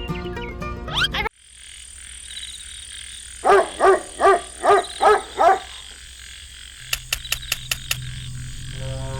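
An animal croaking six times in quick succession, each call short and pitched. A quick run of about six clicks follows.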